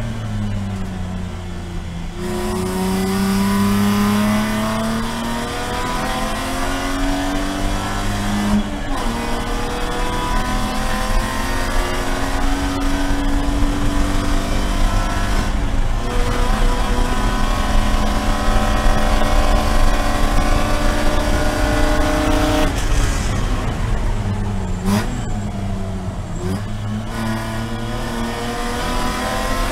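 In-cabin sound of a BMW Spec E46 race car's straight-six engine under racing load. From about two seconds in it revs up through the gears with two upshifts, then the revs fall under braking, with quick blips on the downshifts, before it pulls hard again near the end.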